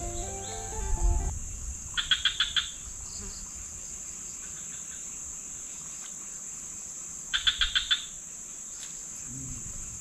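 Forest insects: a steady high-pitched buzz, with two short runs of rapid chirps, one about two seconds in and one near eight seconds.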